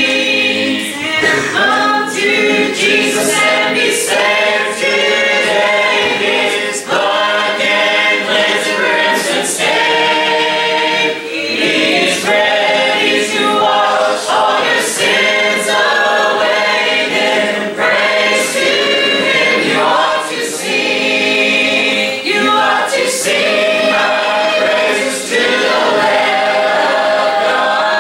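A congregation of men's, women's and children's voices singing a hymn together a cappella, unaccompanied and without pause.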